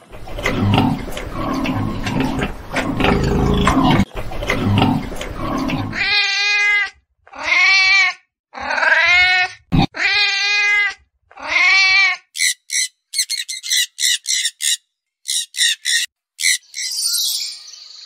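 A sequence of animal calls. First comes about six seconds of rough, noisy animal sound. Then a cat meows five times, each meow a drawn-out rise and fall. Then come rapid, short, high chirps, which fit a red squirrel.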